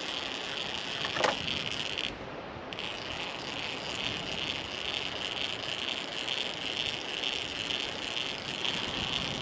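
Fishing reel being cranked steadily to bring in a hooked dogfish, pausing for about half a second around two seconds in and then winding on, over a constant background hiss. A brief rising squeak comes about a second in.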